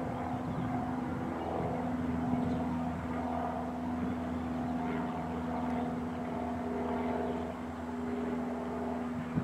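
Steady engine drone, even in pitch and level.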